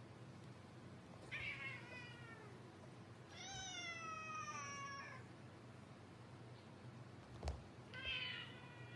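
Domestic cats meowing: a short falling meow, then a longer drawn-out falling meow, and near the end a run of quick, choppy meows. A single sharp click about seven and a half seconds in.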